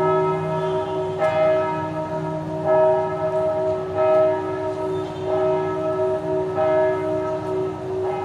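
Church bells of the Notre-Dame Cathedral Basilica of Saigon ringing, with a new stroke about every second and a half and each stroke ringing on into the next.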